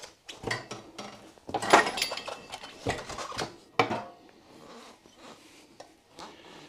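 Metal clanks, knocks and scrapes as a Royal Enfield Classic 350's rear wheel is worked out of the swingarm past the rear mudguard. The loudest is a ringing metallic clank about two seconds in, and it goes quieter in the last couple of seconds.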